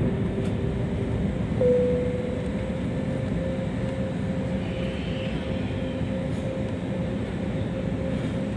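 Airliner cabin noise during descent: a steady low rumble of the engines and airflow with a steady humming tone running through it, which swells briefly about a second and a half in.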